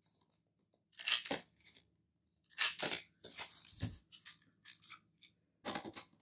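A few short, crisp crunches and clicks of paper: a planner page being pressed back onto its discbound rings.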